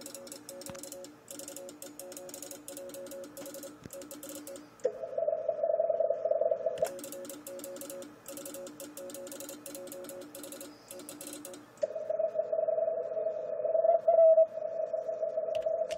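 Morse code (CW) exchange heard from an amateur radio transceiver. Quieter stretches of keyed tones with rapid clicking alternate twice with a louder Morse tone from the other station, the back-and-forth of contest contacts being made.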